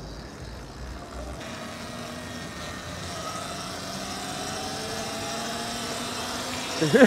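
A vehicle's motor running with a slowly drifting pitch, gradually getting louder; a low rumble drops away about a second and a half in.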